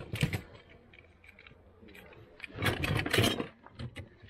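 Toy cars and trucks clattering against each other as hands rummage through a cardboard box of them, in two bursts: one right at the start and a longer one past the middle, with light ticks between.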